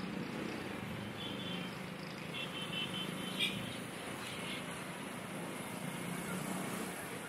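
Street ambience: a steady din of traffic with a low hum, with a few short high-pitched sounds scattered through the first half and a sharper one about three and a half seconds in.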